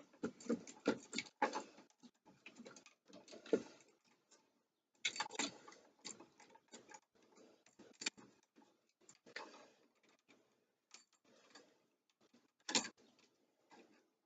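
Scattered light clicks and taps of pliers and copper ground wire being handled as the wire is bent into a hook around an outlet's screw: a quick cluster at first, then single clicks every few seconds.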